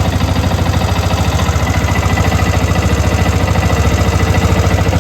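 Yamaha R15 V2's single-cylinder engine running with a steady, rapid beat after the throttle has been opened, on a bike with a fault that makes it cut out when accelerated.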